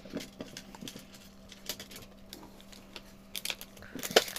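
Light clicks and taps of hard plastic toy-capsule parts being handled, then a quick cluster of crinkles from foil packets being handled near the end.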